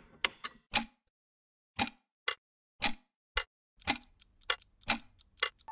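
Sharp clock-like ticks from an animated intro's sound effect. A few come at first, then there is a pause of about a second, and they return spaced out before quickening to about four a second near the end.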